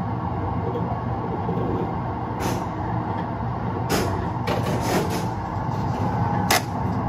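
Train-driving simulator playing the running sound of an electric train, a steady rumble, with several short air hisses from about two and a half seconds in as the train slows under braking.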